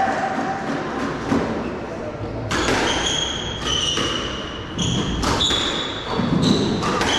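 Squash rally: the ball smacking off rackets and walls, and court shoes squeaking on the wooden floor, with several short, high squeaks from about two and a half seconds in.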